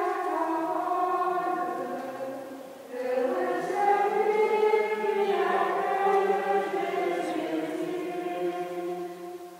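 Several voices singing together a slow chant-like hymn in long held phrases, with a short break for breath about three seconds in.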